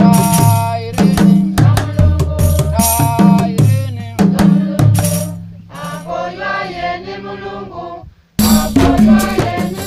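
A group singing a traditional song to drums and rattles, with fast, regular drum strikes under the voices. About six seconds in, the drumming drops away and the singing carries on alone. Near the end, drums and singing cut back in abruptly.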